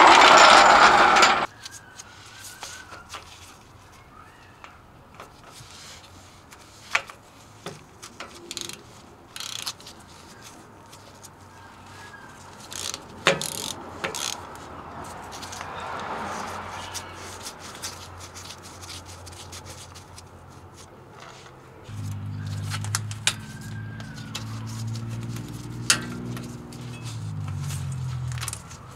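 Hand tools on a pickup's rear axle and differential: scattered metallic clicks and clinks of a socket ratchet on a bolt. A loud rush of noise fills the first second and a half, and a low, wavering hum runs through the last six seconds or so.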